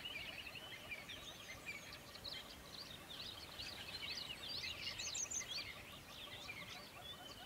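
Many small birds chirping and singing at once, quick overlapping notes with no pause, over a steady rush of river water.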